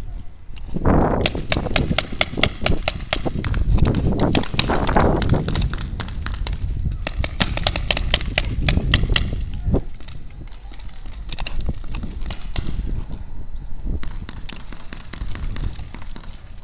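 Paintball markers firing in rapid strings of sharp pops, several shots a second: a long volley from about a second in to five seconds, another from about seven to nine and a half seconds, then scattered fainter shots near the end, over a low rumble.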